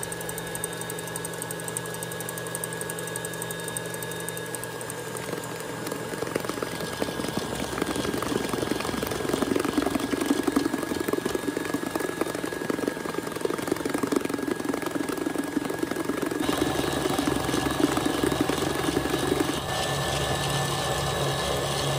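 KitchenAid stand mixer running at speed, its wire whisk beating egg whites into meringue as hot honey-sugar syrup is poured in. There is a steady motor whine that grows louder part way through and changes note about three-quarters of the way in.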